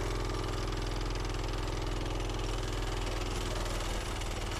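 Minibike's small engine running steadily as it is ridden along, its note easing a little about four seconds in.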